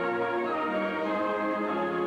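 A school concert band playing held chords, with flutes and brass such as trombones sounding together.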